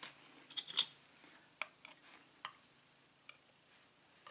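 Light metallic clicks and taps of a disassembled pin tumbler cylinder lock's small parts being handled: a quick cluster about a second in, then single ticks roughly once a second.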